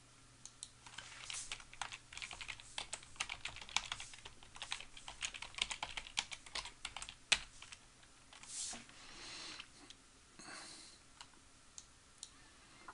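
Faint typing on a computer keyboard: a quick run of keystrokes entering an email address, which stops about seven and a half seconds in. After that come a few soft hissing swells.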